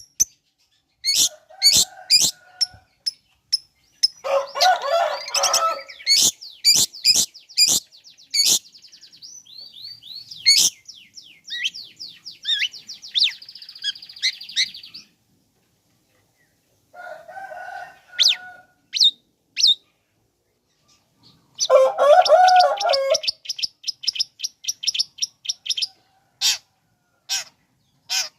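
Long-tailed shrike (cendet) song: quick sharp high chirps and rapid trills, broken three times by harsh rasping chatter, with two short silent gaps in the middle.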